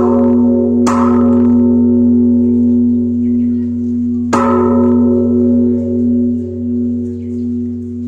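Large hanging Buddhist temple bell struck by a monk with a swinging wooden log, twice: about a second in and again after about four seconds. Each strike rings on as a long, low hum that pulses as it slowly fades.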